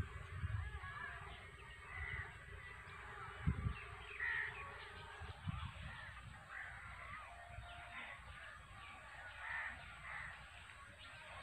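Crows cawing every few seconds over a busy background of smaller birds chirping in the trees. A few dull low thumps stand out, the loudest about three and a half seconds in.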